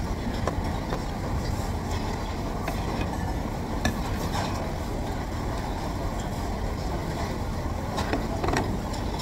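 Steady low background rumble of a conveyor-belt sushi restaurant, with a few light clicks, about four seconds in and again near the end.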